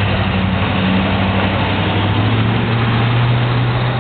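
A truck's engine running loudly, heard through a security camera's microphone. It is a low, steady drone that rises slightly in pitch about halfway through as the truck pulls away.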